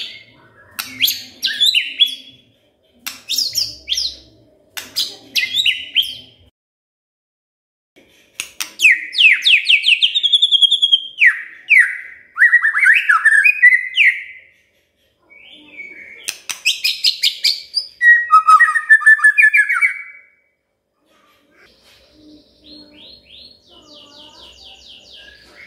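White-rumped shama singing: loud, varied whistled phrases with gliding notes, first short bursts, then two long, rich phrases separated by short pauses. A faint, fast trill follows near the end.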